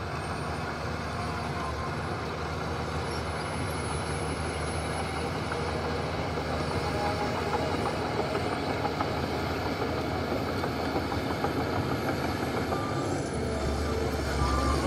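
Heavy diesel earthmoving machinery running with a steady low rumble, a little louder near the end, where a pitched squeal joins in.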